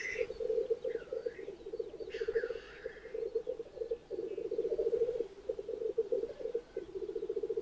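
Male black grouse at a lek giving their continuous, rapidly pulsing bubbling (rookooing) display song, several birds overlapping. A hissing 'tchu-wee' sneeze call cuts in about two seconds in.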